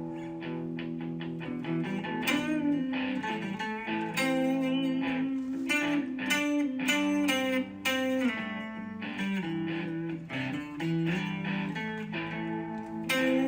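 Background music: a guitar piece of plucked notes ringing over held low notes, at a steady easy pace.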